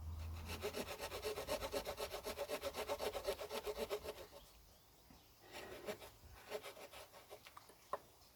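Small folding wood-saw blade of a Victorinox pocket tool cutting fresh wood in quick, even strokes. The sawing stops about four seconds in, followed by faint scraping and handling sounds and one sharp click near the end.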